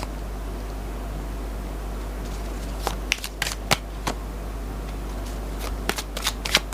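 Tarot cards being shuffled and flicked down: quiet at first, then scattered crisp snaps and flicks of the cards from about three seconds in, and a second cluster near the end.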